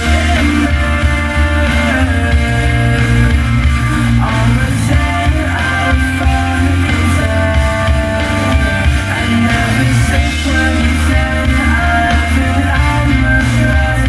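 Rock music with guitar and a singing voice, played loud and bass-heavy through a Technics SA-EX700 stereo receiver and WB-W33 passive subwoofer.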